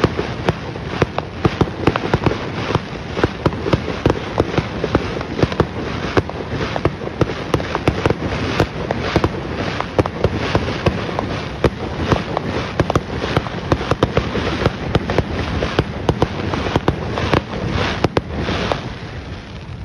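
Aerial fireworks display: a dense, continuous barrage of sharp bangs, several a second, over a steady rumble of further bursts.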